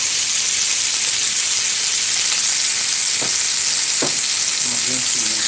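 Chicken pieces frying in hot oil in a pot, a steady loud sizzle as they brown.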